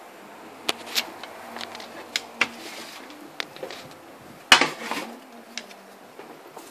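Light clicks and knocks of hard objects as the plastic hockey visor is lifted out of a steel pot of hot dye and set down on the counter, with one louder clatter about four and a half seconds in.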